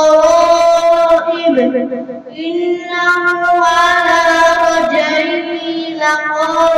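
A boy reciting the Quran in the melodic tajweed style, drawing out long held notes in two long phrases, with a short breath a little over two seconds in.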